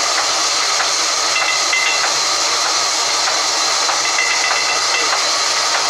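Sawmill vertical band saw cutting lengthwise through a log: a loud, steady hiss that does not let up.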